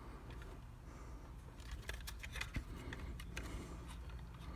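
Faint scattered clicks and light scraping of a 2007 Honda Odyssey's plastic HomeLink housing being pried open at its snap tabs, a few clicks bunched together about two seconds in.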